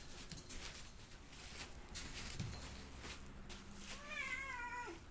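A domestic cat gives one long meow about four seconds in, wavering in pitch and dropping at the end. Faint small taps and rustles come before it.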